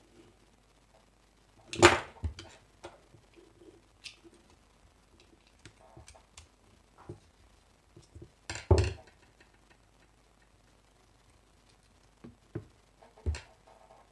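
Handling noise: scattered knocks and small clicks as a push-button switch and its contact block are handled and worked with a screwdriver on a wooden board, with two louder clunks, about two seconds in and about nine seconds in.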